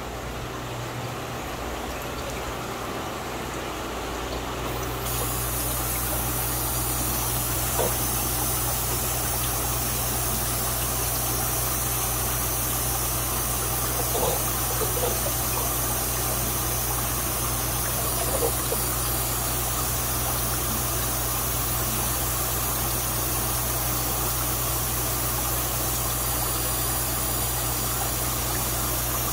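Steady hum and hiss of water pumps and water circulation in a fish-breeding vat, growing louder about five seconds in and then holding, with a few light knocks.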